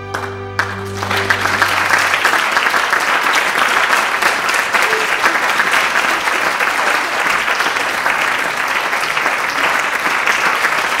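Audience applauding: a dense, steady clapping that starts about half a second in, over the last chord of the orchestra fading away.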